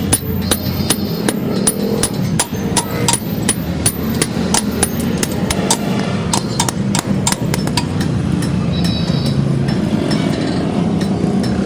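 Blacksmith's hammer striking hot steel on an anvil: sharp blows a few times a second with short metallic rings, and a quicker flurry of blows about halfway through, over a steady low hum.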